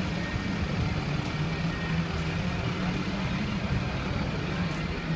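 Congested city road traffic: a steady low engine drone from slow-moving and idling vehicles, double-decker buses among them.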